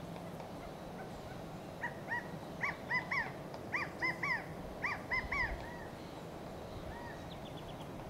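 California quail calling: a run of about a dozen short call notes in quick groups of two or three, starting about two seconds in and stopping near six seconds.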